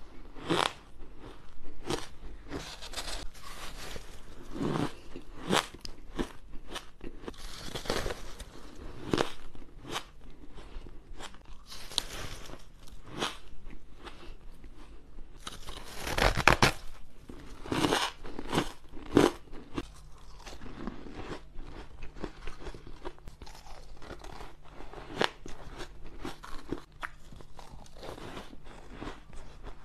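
Close-miked crunching and chewing of packed shaved ice: irregular crisp bites and crunches as powdery ice is bitten off and chewed, the loudest bite about halfway through.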